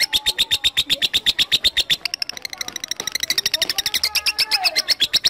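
Lovebird giving its long 'ngekek' chatter: a fast, even run of short, shrill notes, about a dozen a second, with no break, rising a little in pitch midway. A few lower, gliding notes join near the end.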